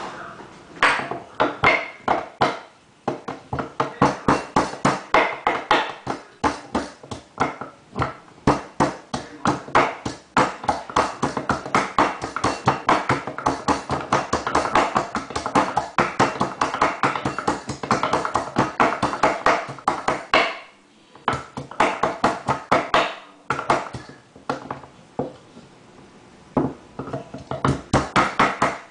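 Ginger root being mashed with quick, repeated pounding strikes, about three or four a second, broken by a few short pauses.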